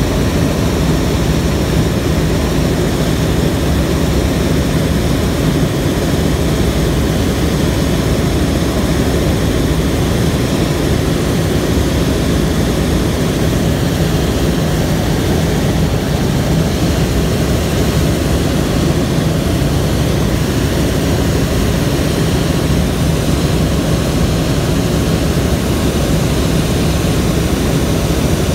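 Helicopter in flight, heard from on board: a steady, loud drone of rotor and engine that holds unchanged throughout.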